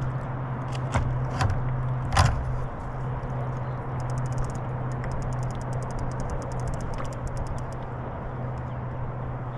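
Sounds aboard a Hobie Lynx kayak under way on a lake: a steady low hum with water noise, three sharp knocks in the first two and a half seconds, the last the loudest, then fast, faint ticking from about four seconds in.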